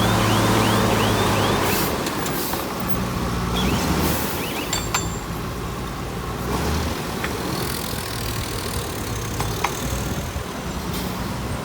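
Diesel engine of heavy earthmoving machinery running, then dropping back about two seconds in, with scattered sharp metallic clanks and knocks. A repeating chirping warning alarm, about three chirps a second, stops about a second and a half in.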